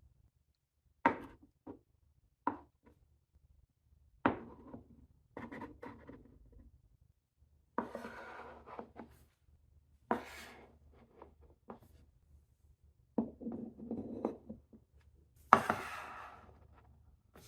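Marbles dropping down the steps of a Cuboro wooden block marble run, clacking on the wood, in separate sharp knocks and short rattling runs that trail off. The loudest run comes near the end.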